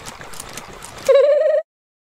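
A short, high-pitched, wavering vocal whimper, like a cartoon child's, about a second in; it cuts off abruptly.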